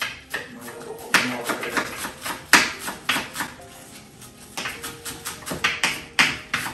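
Chef's knives chopping fresh parsley and dill on cutting boards: quick, irregular knocks of the blades striking the boards, several a second, with a few sharper strikes standing out.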